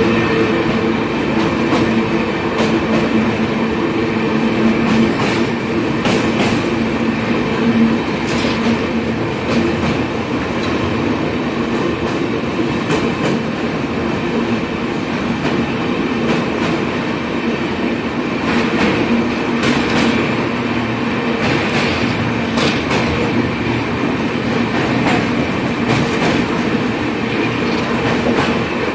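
Passenger train coach running at speed, heard at an open door: a steady rumble and hum of the wheels on the rails, with sharp clicks over rail joints every few seconds.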